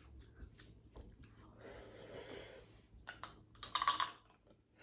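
Close-miked eating of a snow crab boil: chewing and a run of small clicks and cracks from crab shell being handled, with a louder burst of sound about a second before the end.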